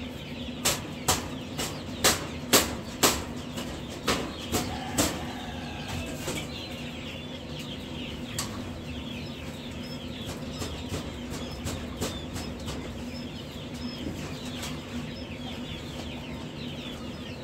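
Many baby quail and other chicks peeping densely in brooder cages over a steady low hum. In the first five seconds, about ten sharp knocks as the cages are handled.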